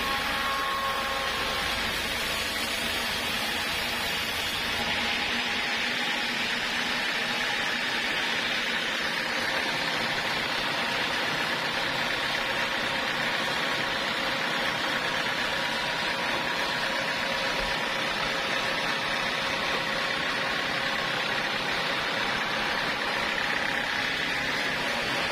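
Sawmill machinery running steadily, a continuous mechanical hum and whir without breaks.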